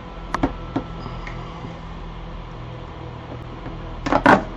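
Small fume-extraction fan running with a steady hum. A few light clicks come in the first second, and a short, louder clatter about four seconds in.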